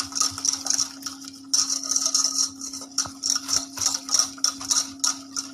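A utensil stirring a lemon-cream base of egg yolks, sugar, lemon juice and cornstarch in a bowl, in quick scraping strokes about three a second with a short pause a little after one second in, working the cornstarch in so it won't go lumpy.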